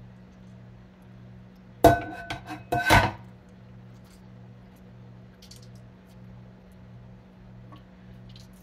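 A green plastic colander set down into a glass bowl in a stainless steel sink: a clatter of five or six knocks over about a second, about two seconds in, with a ringing glassy clink. A low steady hum runs underneath.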